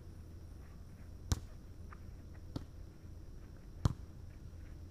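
A volleyball being passed back and forth, struck three times about a second and a quarter apart, the third hit the loudest.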